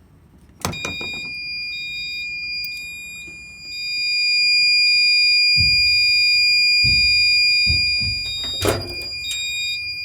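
Gentex GOS fire alarm horn, set to 2400 Hz continuous at low volume, sounding one steady high-pitched tone. It starts with a sharp click about half a second in as the alarm is triggered. The tone swells louder for a few seconds in the middle, with a few dull thuds underneath.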